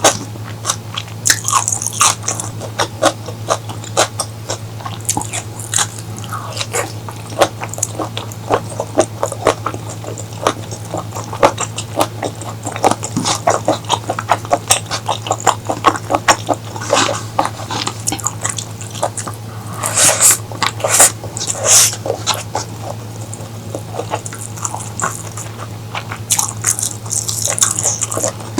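Close-miked eating: mouth chewing and biting into food, with many small wet clicks and crunches and a few short hissing slurps, over a steady low hum.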